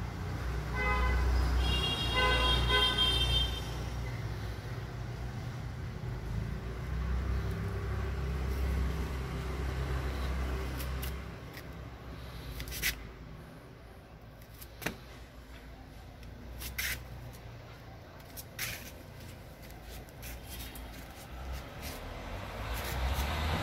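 Short, evenly repeated high beeping toots near the start over a low steady rumble, which fades out about halfway through; a few sharp isolated clicks follow later.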